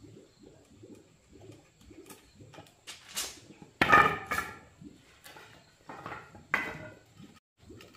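Sawn wooden battens and boards knocking and clattering against each other and the concrete floor as they are handled and set down, with the loudest clatter about four seconds in and another knock near seven seconds.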